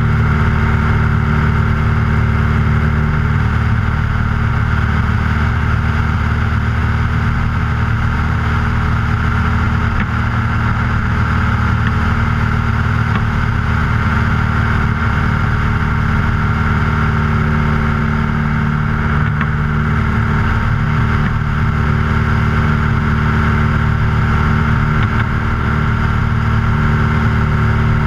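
Luscombe light aircraft's piston engine and propeller running steadily at takeoff power through the ground roll and climb-out.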